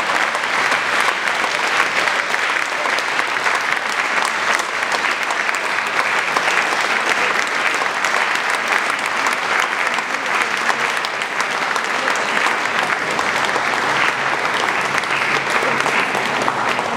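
Concert audience applauding steadily, a dense even clapping.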